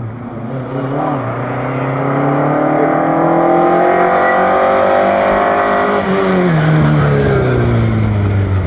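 Ford Escort Mk2 rally car's engine under hard acceleration, its revs climbing over the first few seconds and held high, then dropping about six seconds in as the car lifts off and passes close by, getting steadily louder throughout.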